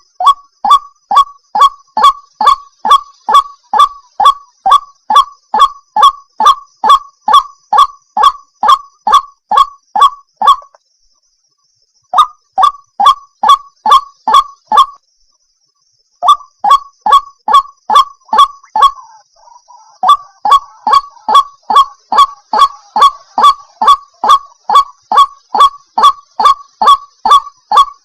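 White-breasted waterhen (ruak-ruak) calling: loud, short, croaking notes repeated about two and a half times a second, breaking off twice for about a second before carrying on.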